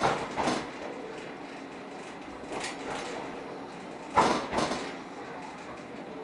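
Suburban electric train in motion, heard on board: a steady rumble of the carriage with irregular sharp clanks and rattles, the loudest pair about four seconds in.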